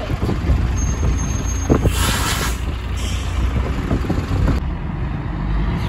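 Diesel bus engines running with a low steady rumble, and a short hiss of released brake air about two seconds in.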